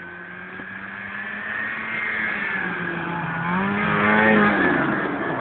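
Snowmobile engine running at speed as it approaches and passes close by, growing louder to a peak about four seconds in, its pitch bending as it goes past, then easing off as it moves away.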